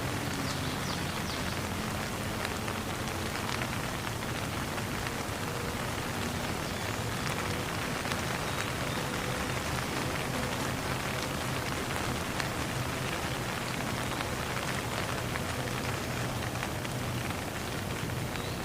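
Steady rain falling, with many small clicks of individual drops striking close by.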